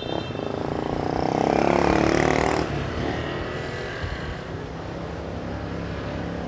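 A road vehicle's engine revs up as it accelerates, climbing in pitch and loudness for the first two to three seconds, then settles to a steady run under road and wind noise.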